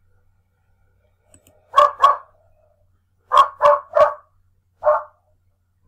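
A dog barking six times: a pair of barks, a run of three, then a single bark.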